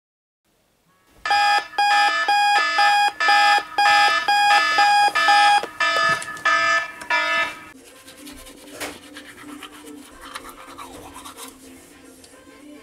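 Alarm clock beeping in quick repeated pulses, about three a second, for roughly six seconds, then stopping. After it comes a much quieter steady low hum with a few small clicks.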